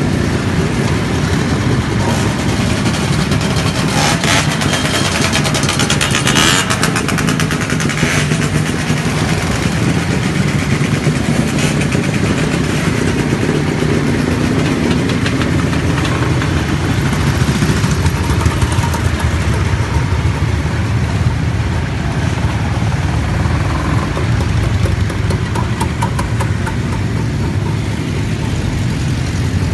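A column of classic motorcycles and scooters riding past one after another, their engines running steadily in an overlapping drone, with a few short crackles about four to eight seconds in.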